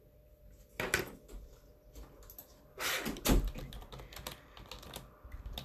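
Irregular taps and clicks of fingers on the phone that is recording, with a heavier handling knock about three seconds in.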